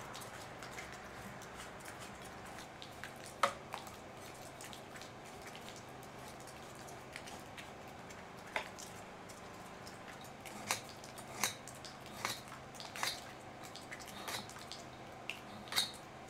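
Scattered light clicks and taps of a small cleaning brush working over a STIHL chainsaw with its cover off and engine stopped, over a faint steady background.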